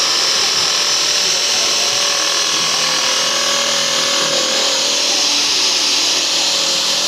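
A power tool running steadily: an even, high hiss over a steady hum, with no pause or change in speed.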